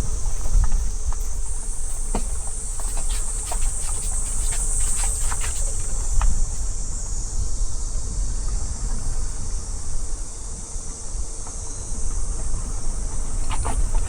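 Car driving with a steady low road and wind rumble, and a steady high insect drone over it that swells from about two to six seconds in, with scattered light clicks.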